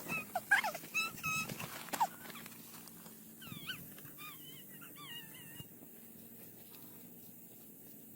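A series of short, high-pitched animal whimpering calls, some gliding up and down, with a few knocks mixed in during the first two seconds.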